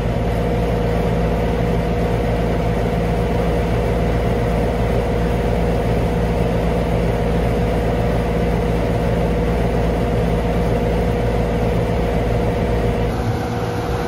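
1997 Carrier TECH2000SS heat pump outdoor unit running steadily: compressor and condenser fan, a constant low hum with a steady whine over the rush of air.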